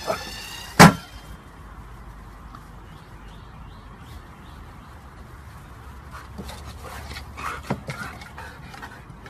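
A single sharp knock about a second in, then a low steady outdoor background with a few faint knocks near the end.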